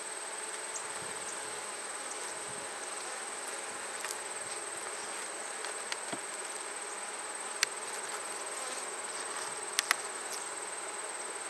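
Honey bees buzzing steadily around an open hive during an inspection, with a thin steady high tone over it. A few sharp clicks break in, the loudest a single one about seven seconds in and a quick pair about ten seconds in.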